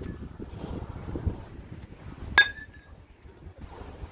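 Louisville Slugger Select PWR baseball bat striking a pitched ball once, about two and a half seconds in: a sharp metallic ping with a short ringing tone. A low rumble of wind on the microphone runs under the first second or so.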